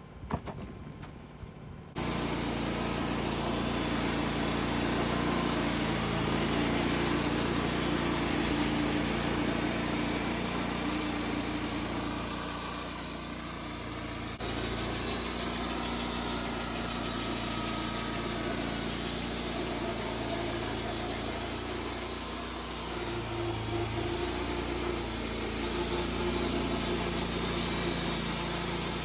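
Portable sawmill's engine running steadily under the noise of the saw. It starts abruptly about two seconds in and eases off briefly a little past the middle.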